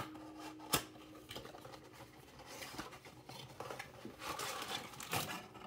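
Light handling noises: two sharp taps within the first second, then scattered soft rustling that thickens toward the end, as cards and packaging are moved around on the table.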